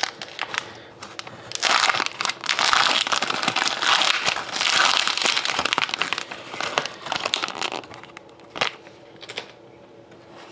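Dark plastic wrapper of a Panini Prime hockey card pack crinkling and tearing as it is pulled open by hand, in repeated rustling bursts for most of the first eight seconds, then only a few faint rustles and taps.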